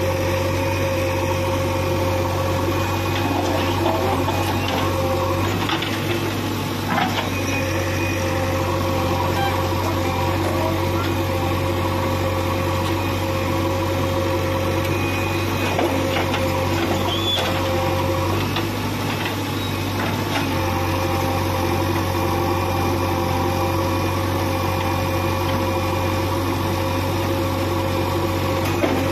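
JCB backhoe loader's diesel engine running steadily under hydraulic load as the backhoe digs soil and dumps it into a trailer, with a few clunks now and then.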